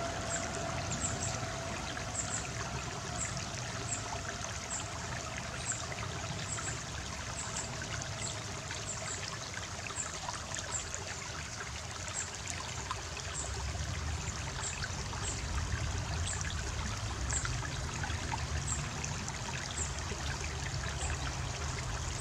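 Running water of a stream, trickling and splashing steadily. Faint high chirps repeat about every two-thirds of a second over it.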